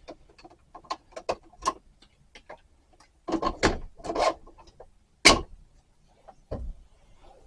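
A series of light clicks and knocks as a 3D-printed plastic cup holder insert and a drink are handled and set into a bus cup holder, with a denser cluster of knocks partway through and a single sharper knock after it.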